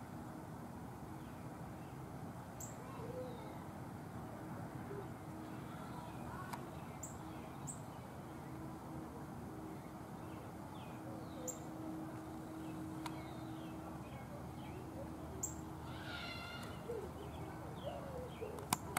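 Outdoor garden ambience: birds chirping and calling now and then over a steady background hiss, with a faint low steady hum underneath.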